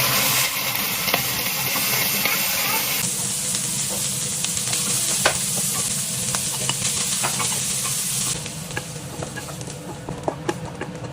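Food frying in a hot pan: a loud sizzle that starts suddenly and, after about eight seconds, dies down to a quieter hiss while a spatula clicks against the pan as the food is stirred.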